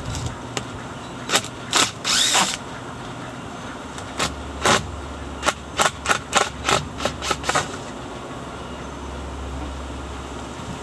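Sharp knocks and clacks of wood as the 2x4 pond supports are handled and pulled loose. A few separate knocks come first, then a quick run of about five a second for a couple of seconds.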